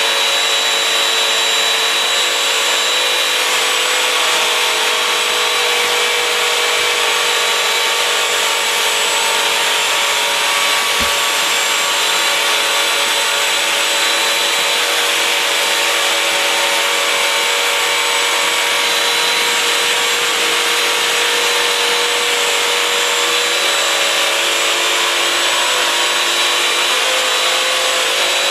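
Bissell CrossWave Advanced wet-dry hard-floor cleaner running steadily, its suction motor and spinning brush roll giving an even whine over a hiss. It is wet-vacuuming a spill of apple sauce, sugar and confetti from the floor.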